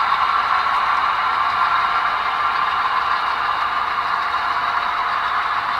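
HO-scale model coal hopper cars rolling past on the track: a steady whirring clatter of small metal wheels on rail.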